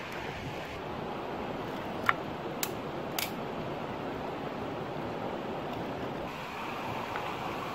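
Steady rush of a shallow stream flowing over stones, with three short, sharp clicks about two to three seconds in.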